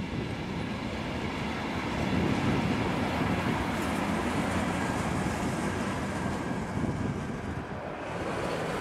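Freight train of covered sliding-wall wagons rolling past at speed, a steady rumble of wheels on the rails. Near the end the sound briefly drops and changes.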